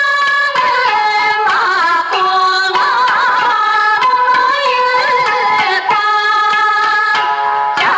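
Background music: a melody of long held notes, some wavering in pitch, over light steady percussion.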